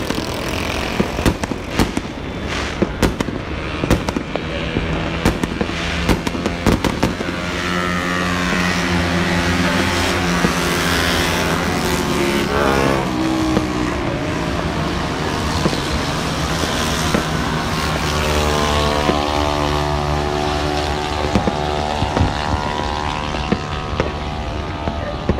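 Fireworks banging and crackling in quick succession for the first several seconds, with scattered bangs later. From about eight seconds in, a motor vehicle's engine runs and revs, its pitch dropping steeply around halfway and climbing again toward the end.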